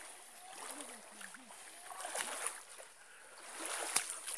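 Water sloshing and splashing around legs as people wade through a shallow, muddy creek, swelling into louder splashes about two seconds in and again near the end, with a sharp click just before the end.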